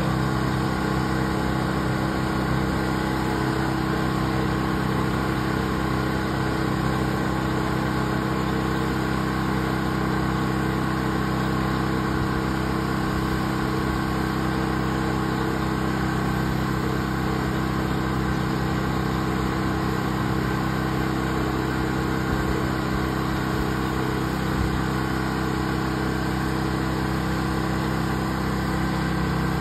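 Pressure washer engine running steadily at a constant pitch while water is sprayed through the wand.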